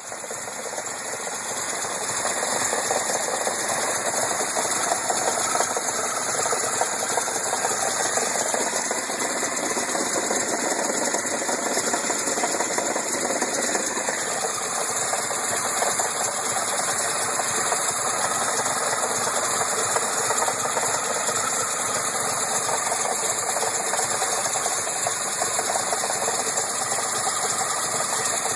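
Datsun engine running with a fast, continuous mechanical clatter: the mystery clunking noise whose cause the owner is searching for.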